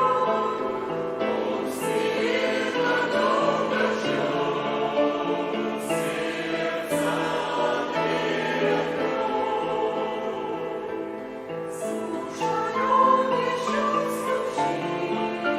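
Choir singing a Christian hymn in slow chords, each held for a second or two.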